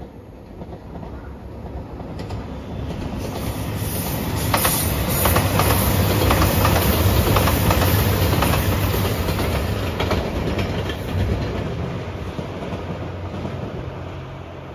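A JR Shikoku 2700 series diesel limited express train passing. The engine and wheel noise rises, peaks with a rapid clickety-clack of wheels over rail joints about halfway through, then fades as the train goes away.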